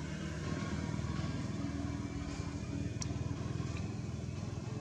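Steady low engine hum with a faint click about three seconds in.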